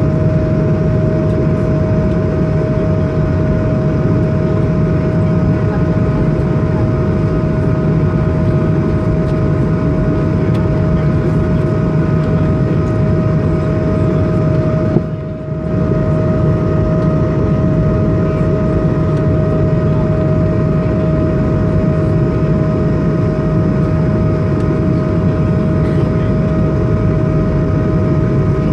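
Airbus A220-300's Pratt & Whitney PW1500G geared turbofans at climb power, heard inside the cabin as a steady loud drone with steady tones over the rushing noise. The sound dips briefly about halfway through.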